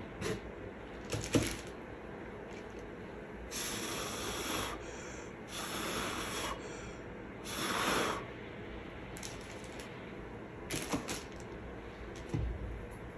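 A person blowing three breathy puffs of air across wet acrylic pouring paint, each about a second long. A few light clicks and knocks come before and after them.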